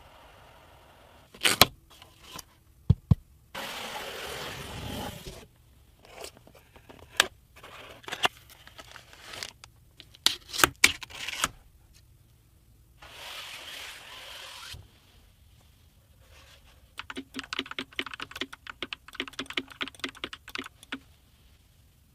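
Hands handling computer parts: scattered sharp clicks and knocks with two short stretches of rustling, then a quick run of light clicks lasting about four seconds near the end.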